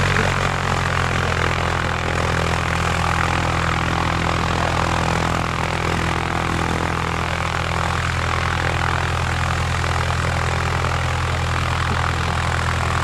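A steady engine drone, a low even hum with a rushing noise above it, holding at the same level throughout.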